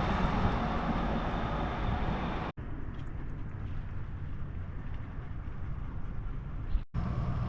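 Steady outdoor background noise with a low rumble, typical of vehicle noise. It cuts out completely and briefly twice, about two and a half seconds in and near the end, where clips are spliced together.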